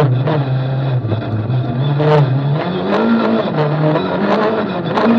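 Renault Clio Maxi's 2.0-litre four-cylinder rally engine pulling hard under acceleration, heard from inside the cabin, its note dropping and climbing again in steps through gear changes. A few sharp clatters cut in over the engine.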